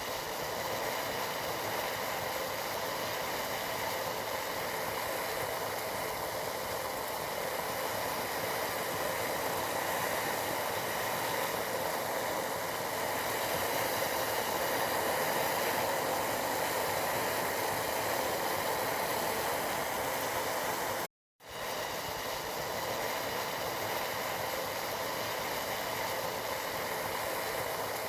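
Tea boiling steadily, an even noise with no break except a short drop to silence about 21 seconds in.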